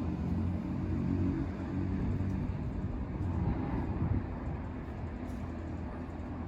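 Low rumble of a passing motor vehicle's engine, fading away over the first few seconds and leaving a softer steady background rumble.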